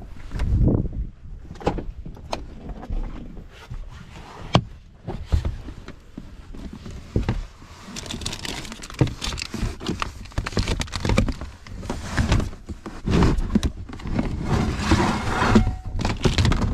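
A pickup truck's rear door is opened, then hands rummage through a clear plastic storage bin: clicks and knocks of the bin lid and containers being moved, becoming a dense clatter and rustle about halfway through.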